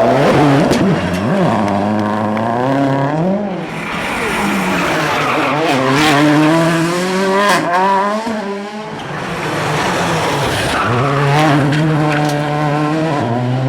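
Rally car engine revving hard, its note climbing and dipping through gear changes, falling away about two-thirds in, then picking up again at a steadier pitch.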